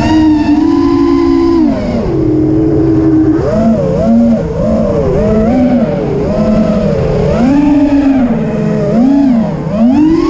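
FPV quadcopter's electric motors whining, holding one pitch for the first couple of seconds, then swooping up and down about once a second as the throttle changes.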